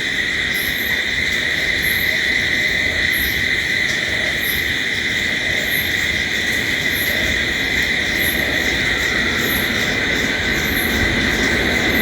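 Night chorus of crickets: a steady, continuous high trill, with a much higher chirp repeating about every second and a quarter, over a low background rumble.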